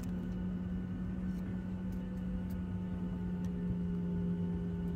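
Steady cabin drone of a Boeing 737-700 taxiing on idling engines: a constant low hum over a rumble. A few faint ticks are heard.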